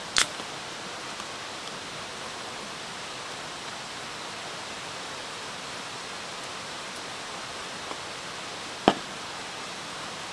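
An aluminium drink can of lemon sour being opened with its pull tab: one short, sharp crack and hiss just after the start. A single sharp knock follows near the end. A steady hiss runs underneath.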